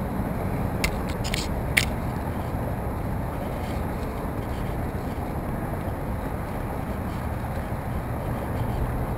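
Steady rumble of wind buffeting the microphone on a kayak, with a few sharp clicks and scrapes about one to two seconds in as the orange mesh safety flag blows against the camera.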